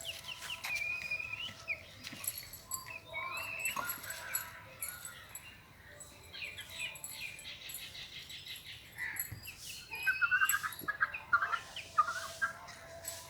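Birds chirping and calling: short whistled notes and quick runs of chirps, loudest near the end.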